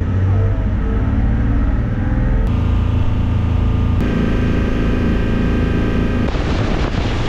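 Boat engine running steadily under way, its note changing abruptly three times.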